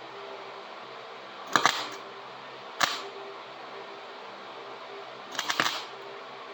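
Three brief clusters of sharp clicks and knocks, about a second and a half in, just under three seconds in and near the end, over a steady electrical hum.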